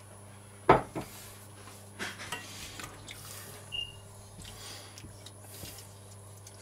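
Wooden spatula stirring in a stainless steel pot of broth and rice, knocking against the pot: one sharp knock near the start, then a few lighter taps and scrapes.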